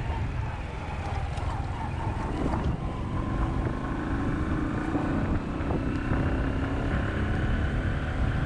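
Vehicle running along a road, a steady engine rumble with wind buffeting the microphone.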